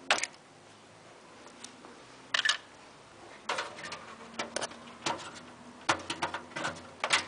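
Irregular clicks and light knocks of computer hardware being handled as the motherboard swap begins, sparse at first and coming more often in the second half.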